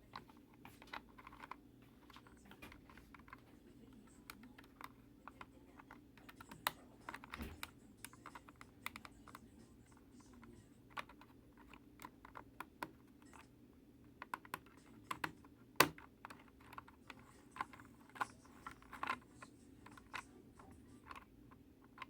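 Irregular light clicks and taps of small plastic and metal parts being handled while a clothes iron is worked on, with one louder knock about two-thirds of the way through.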